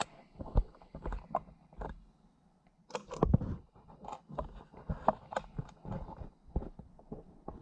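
Handling noises: a scatter of irregular clicks, knocks and light rattles as objects are moved and adjusted by hand, loudest just over three seconds in.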